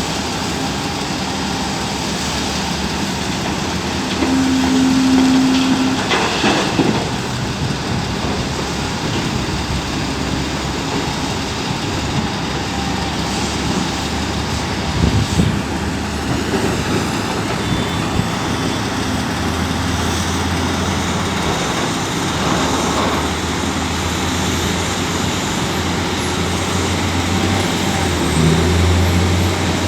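Volvo EC950EL excavator's diesel engine and hydraulics running steadily while working, with a deeper engine drone building in the second half. A few brief heavy knocks are heard, one about six seconds in and another around the middle.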